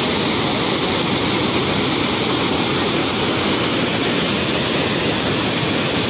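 Fast water rushing over a rocky waterfall and its rapids, a steady, loud, unbroken rushing noise.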